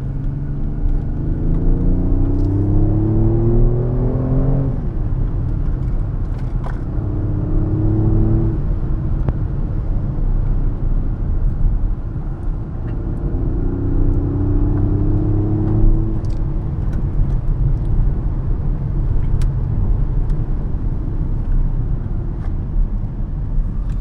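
Car engine heard from inside the car, pulling hard up through the revs and dropping sharply in pitch three times, the longest climb lasting about four seconds, over a steady rumble of tyres and road.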